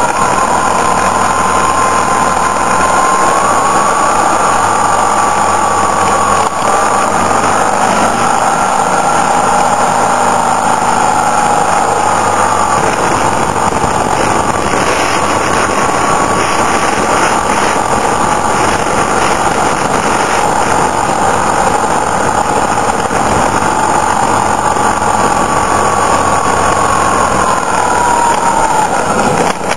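Motorcycle riding up a mountain pass, heard from on board: the engine runs steadily under way, buried in loud wind rush. The engine note drifts slightly up and down through the bends and drops near the end.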